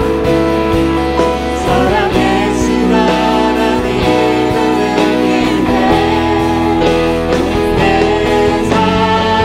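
A worship song: singing over instrumental accompaniment with long held chords.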